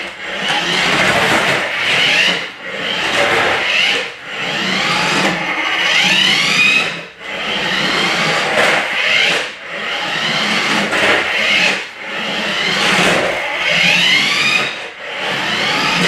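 Toy remote-control car's small electric motor and gears whining as it drives over a wooden floor. It comes in repeated spurts of a second or two, and the whine glides up in pitch as the car speeds up.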